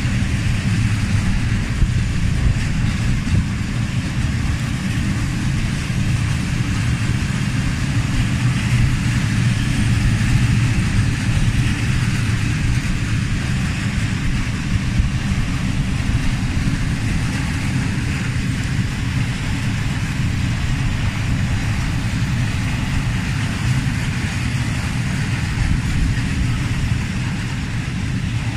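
Train at a station making a steady, loud low rumble.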